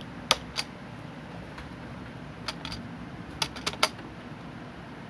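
Sharp clicks over a steady low background noise. There are two about a third of a second apart near the start, two fainter ones about halfway, then a quick run of four within half a second.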